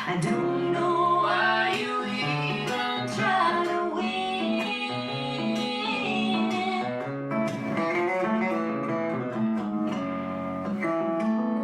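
Live acoustic guitar music with singing.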